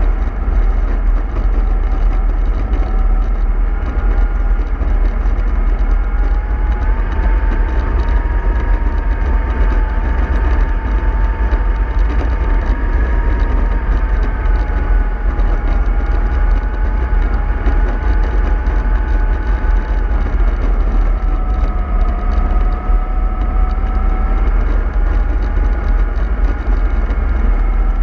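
Remote-control model bus running continuously: a steady low rumble with a whine that drifts slowly up and down in pitch as its speed changes.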